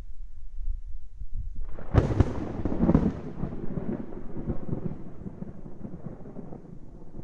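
Thunder: a low rumble, then a sharp crack about two seconds in that breaks into a heavy rolling rumble and slowly dies away.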